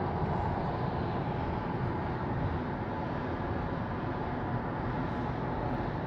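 Steady road and wind noise inside a Tesla electric car's cabin, cruising on the highway at about 58 mph.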